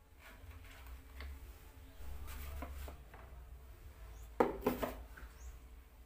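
Plastic containers being handled and set into a plastic storage basket: light rustles and taps, with a quick cluster of sharper plastic knocks about four and a half seconds in as a plastic tube is put down.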